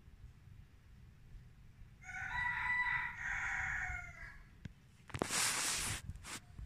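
Rooster crowing once, a crow about two seconds long. About a second after it ends comes a short noisy rustle and a few clicks.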